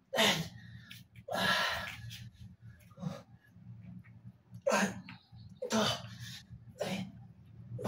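A man's sharp, forceful breaths pushed out in time with his push-up reps, about one every second, one of them longer and hoarser about a second and a half in.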